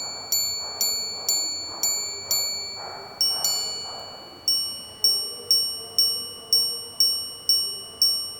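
Chopard L.U.C Grand Strike minute repeater chiming on its sapphire crystal gongs, struck by hammers about twice a second. About seven strikes on one gong, then a two-note pair, then a run of about nine strikes on the other gong: the hours, a quarter and the minutes.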